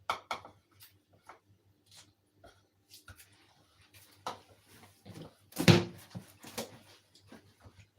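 Kitchen handling noises: light clicks and knocks of utensils and a bowl, with one louder knock near six seconds in.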